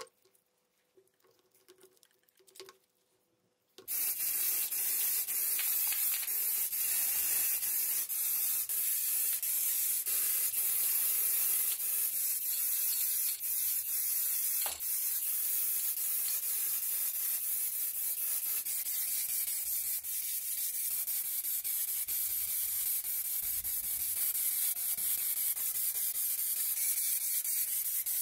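Spray paint hissing steadily onto the small vise's parts, starting about four seconds in after a few faint handling clicks, with only brief breaks between passes.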